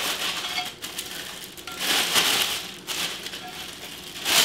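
Clear plastic bag crinkling and rustling as a cast iron Dutch oven lid is worked out of it, in several uneven bursts, the loudest about two seconds in and a short sharp one near the end.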